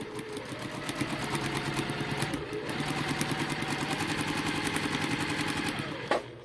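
Electric domestic sewing machine running steadily, needle stitching through a paper template and two layers of fabric with a fast, even rhythm. It stops shortly before the end.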